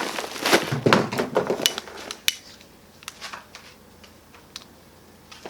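Paper rustling and scattered sharp clicks and knocks as an instant-light charcoal bag is handled. The handling is busy for the first two seconds or so, then thins to a few isolated clicks.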